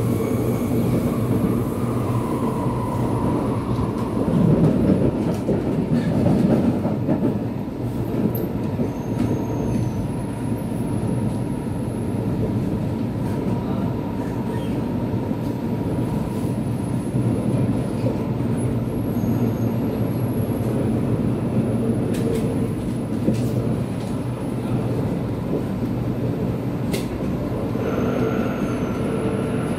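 Cabin running noise of an SMRT C751B electric train in motion on the North–South Line: a steady rumble of wheels on rail with a faint steady whine, swelling a little about five seconds in.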